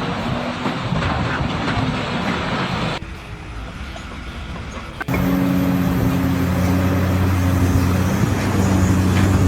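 Machine noise that changes abruptly twice. From about five seconds in, an engine runs at a steady speed.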